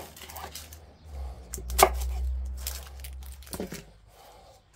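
Kitchen knife knocking on a cutting board while vegetables are cut, several sharp knocks with the loudest about two seconds in.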